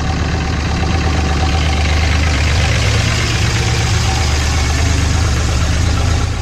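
Dodge Ram pickup truck's engine idling with a steady low rumble.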